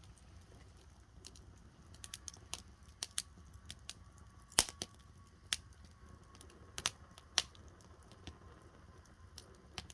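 Firewood burning in a campfire, crackling with irregular sharp pops and snaps; the loudest pop comes a little before halfway through.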